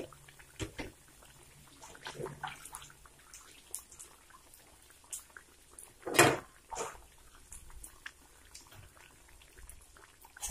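Egg bajjis deep-frying in hot oil in a steel kadai: a faint steady sizzle with scattered small pops and crackles. A brief louder sound comes about six seconds in.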